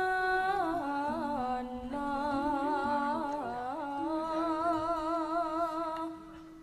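A young female Javanese sinden singing a solo vocal line. She holds long notes with a wavering vibrato and moves between them in sliding, ornamented turns, and her voice stops about six seconds in.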